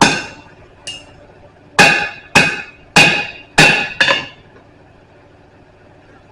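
Blacksmith's hand hammer striking steel on an anvil: six heavy ringing blows with a lighter tap after the first, the last five coming faster, about two a second, then stopping.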